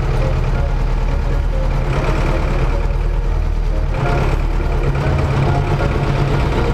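Farm tractor's diesel engine running, heard from inside the cab while the front loader works a manure heap, its note swelling briefly twice.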